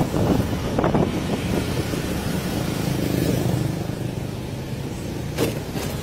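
Street traffic noise heard from a moving vehicle, with wind rumbling on the microphone and motorbikes and vehicles passing. A sharp knock about five and a half seconds in.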